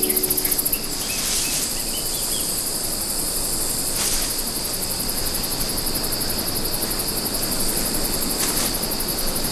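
Steady high-pitched insect trilling, crickets or similar, over a constant hiss, with three brief swells of rushing noise.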